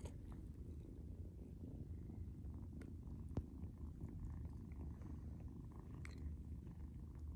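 Domestic cat purring steadily in a low, faint rumble, with one sharp click about three and a half seconds in.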